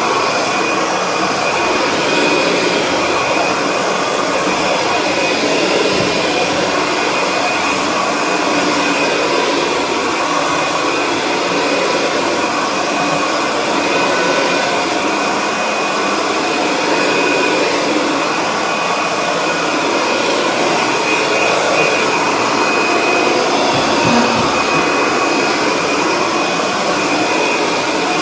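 Kirby Sentria upright vacuum cleaner running steadily at full speed, a constant motor whine over the rush of air.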